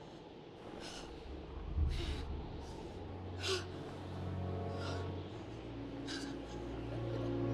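A young woman's heavy, gasping breaths, about one a second, as she lies winded after a fight. Low, sustained music swells in under the breathing from about halfway.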